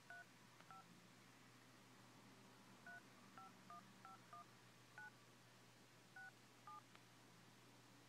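Faint iPhone 4S keypad touch tones: about ten short two-note beeps in an uneven rhythm as a phone number is tapped in, area code included.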